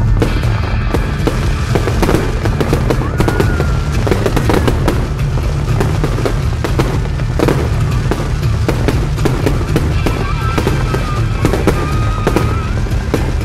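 Fireworks going off over a lake: a steady run of sharp cracks and pops, over music from the show's sound system.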